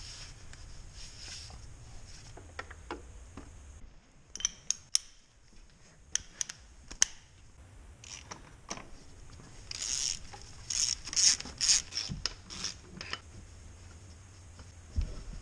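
Hand tools working on a tractor engine: scattered sharp metal clicks and taps, then a run of quicker, louder clicking and rattling in the second half from a socket wrench being ratcheted.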